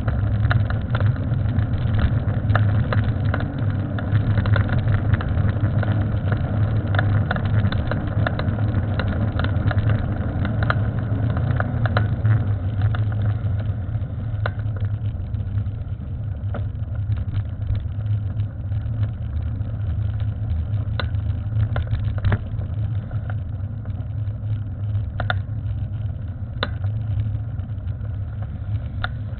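Steady low rumble of riding noise on a moving bicycle, with scattered sharp clicks and knocks throughout.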